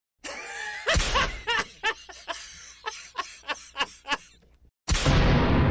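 A boy's cartoon laugh in about ten short 'ha' bursts. Near the end comes a loud sudden hit that keeps ringing.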